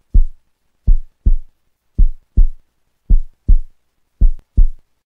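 Heartbeat sound effect: low double thumps, lub-dub, repeating about once a second with silence between.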